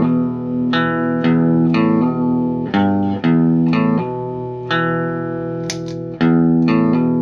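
Electric guitar played clean through a custom-built 5-watt 5F1 tube amp fitted with a Twin Reverb tone stack. A riff of ringing notes and chords, each struck sharply and left to sustain, about one or two picks a second.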